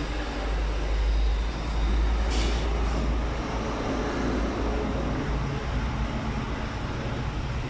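KTC KMEC 15 screw air compressor running: a steady mechanical hum with a strong low rumble. A brief high hiss about two and a half seconds in.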